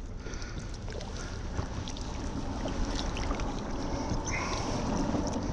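Water lapping and trickling against the hull of a Tucktec foldable kayak, with faint small ticks and a low wind rumble on the microphone that slowly grows louder.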